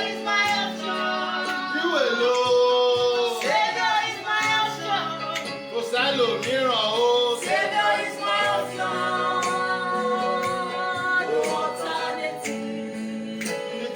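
A woman singing a gospel worship song, with long held, wavering notes and sliding phrases over a steady sustained accompaniment.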